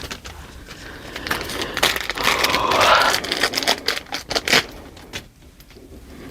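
Packaging being handled and unwrapped: crinkling and rustling mixed with quick small clicks and taps, busiest about two to three seconds in and dying away near the end.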